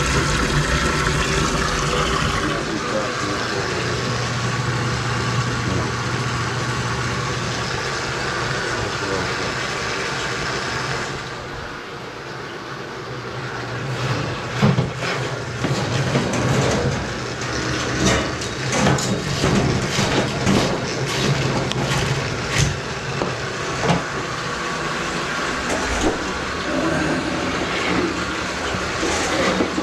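Water running into a laundry tub drain. About eleven seconds in it gives way to an electric drain-cleaning machine running, its spinning cable knocking and clattering irregularly as it is fed into a drain line plugged with lint and grease.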